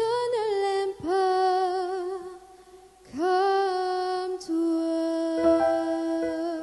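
Music from a song performance: a solo voice sings three long held notes with vibrato, each sliding up into pitch, over soft accompaniment. From about halfway through, the accompaniment plays on alone in sustained notes with separate struck attacks.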